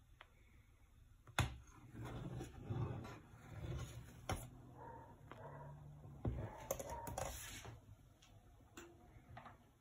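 A metal ladle stirring hot milk in a steel pot: a slosh and scrape between sharp clinks of the ladle against the pot, several times.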